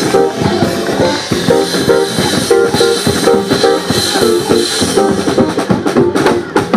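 Latin jazz band playing live, with drums and congas keeping a busy, driving rhythm under repeated short keyboard and bass figures.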